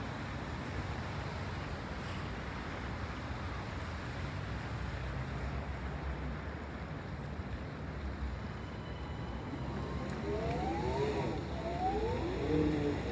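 Steady low rumble of city street traffic. About ten seconds in, a vehicle engine rises and falls in pitch a few times as it accelerates.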